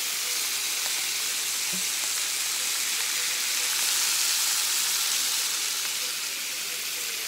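Jumbo shrimp sizzling in a preheated frying pan just after being tipped in: a steady hiss that swells a little about four seconds in.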